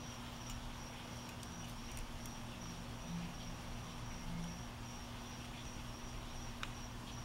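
Quiet room tone: a steady low hum and a faint, high, pulsing tone, with a few faint light ticks of tweezers working against the shotgun receiver's metal detents.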